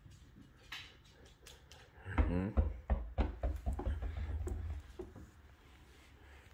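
A small rubber ball tapping and bouncing on a hard laminate floor, with scattered light clicks. About two seconds in there is a short vocal call, followed by a few seconds of low rumble.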